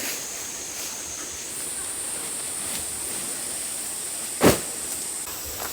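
Insects droning in a high, steady, thin tone that steps up in pitch about a second and a half in. A single sharp knock about four and a half seconds in.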